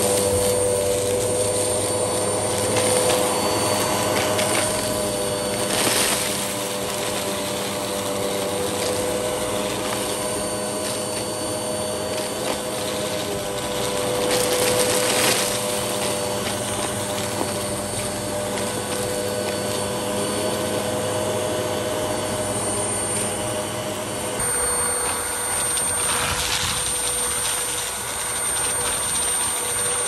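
MOOSOO U1400-PLUS upright vacuum cleaner running steadily with a whining motor hum as its power brush head is pushed over carpet, sucking up spilled Cheerios. There are a few brief louder rushes, and the sound shifts slightly about 24 seconds in.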